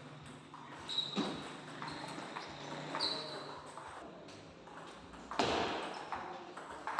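Table tennis rally: a plastic ball clicking off the table and off paddles faced with long-pimpled rubber, a handful of hits, some with a short ringing ping. The loudest hit comes about five and a half seconds in.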